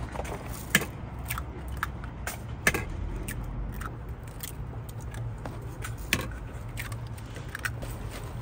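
Cooking utensils at a street toast stall making irregular sharp clicks and taps, over a steady low hum.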